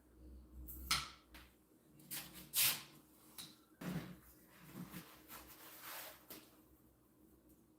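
Irregular scrapes and knocks of wood being handled and slid against a jig, over a faint steady hum; the sound cuts off suddenly at the end.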